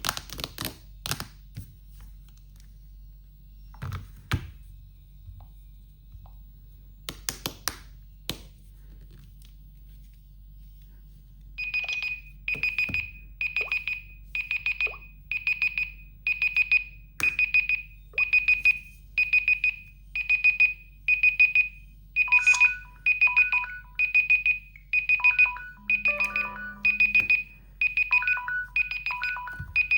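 Samsung Galaxy phone alarm/timer tone: after a few sharp clicks near the start, high electronic beeps begin about 11 seconds in and repeat in quick clusters a little faster than once a second. From about 22 seconds in, a lower two-note tone joins the beeps.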